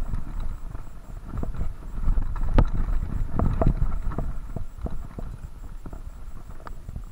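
Mountain bike clattering down a rough, rocky singletrack: irregular knocks and rattles as the wheels hit rocks and bumps, over a steady low rumble of tyres on dirt. The knocks come thickest about two and a half to four seconds in.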